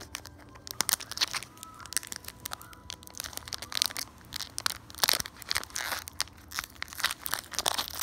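Foil wrapper of a Pokémon card booster pack crinkling as it is squeezed and bent in the fingers, a run of sharp, irregular crackles.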